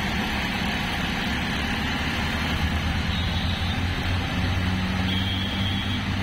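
Auto-rickshaw engine running steadily, a low hum with road and wind noise, heard from inside the open three-wheeler cab while riding in traffic.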